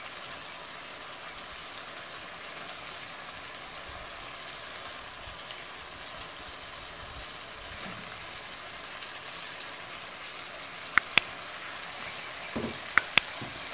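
Chicken pieces in a dark sauce sizzling steadily in a pan, with a few sharp clinks near the end as the cut vegetables go in.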